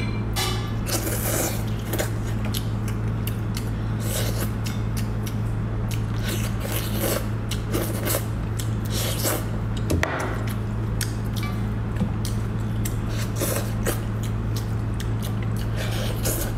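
Close-miked eating: wet squishing, tearing and chewing of braised sheep's head meat pulled off the bone by hand, with many short smacks and clicks, over a steady low hum.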